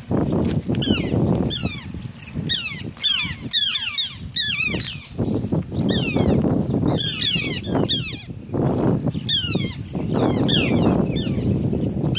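A flock of birds calling over one another, with many quick, high chirps that slide downward, several a second. Underneath is a louder low, rumbling noise that swells and fades.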